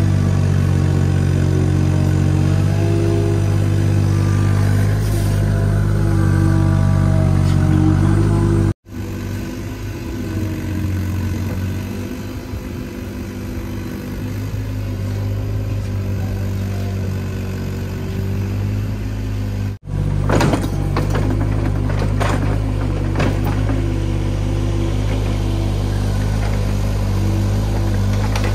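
Hitachi Zaxis mini excavator's diesel engine running under digging load, its hydraulic whine shifting up and down in pitch as the boom and bucket are worked. Sharp metallic clanks of the bucket and arm come repeatedly in the last third.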